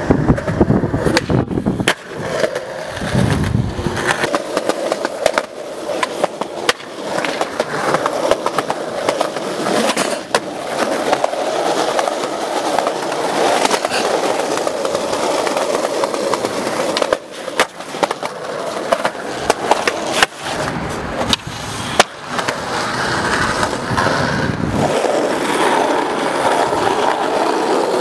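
Skateboard wheels rolling over pavement, a steady rumble broken by frequent sharp clicks and knocks.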